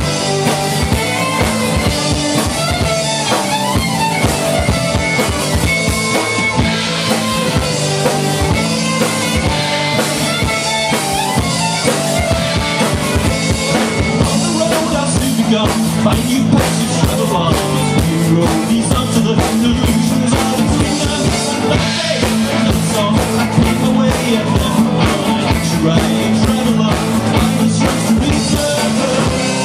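Live folk-rock band playing: fiddle over acoustic and electric guitars, driven by a full drum kit, with the drumming growing busier about halfway through.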